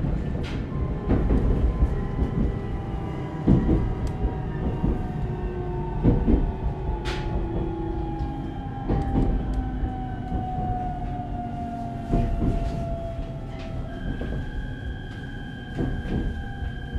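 Cabin sound of an ET127 series electric train slowing into a station: the motor whine falls slowly in pitch as it brakes, over a low rumble with scattered rail clunks. Near the end a steady high whine sets in as the train nears its stop.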